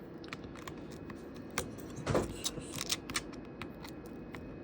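Scattered light clicks and taps of an opened iPad and small repair tools being handled on the bench, with one louder knock about two seconds in.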